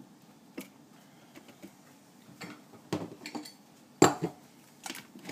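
Kitchen utensils and containers clinking and knocking around a cooking appliance's jug: a scattering of short clicks and knocks, the loudest about four seconds in.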